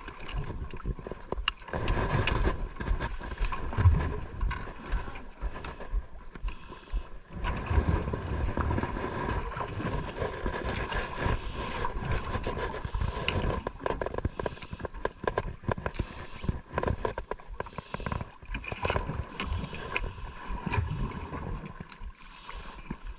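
Wind and water noise on a small outrigger fishing boat at sea, with scattered knocks and clicks as fishing rods and line are handled to sort out a problem with the line.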